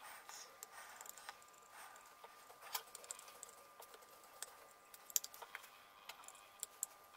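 Faint, scattered clicks and light scraping of small metal parts handled by fingers on a steel accelerometer housing as its top cover is worked loose. The sharpest click comes about three seconds in, with several more around five seconds.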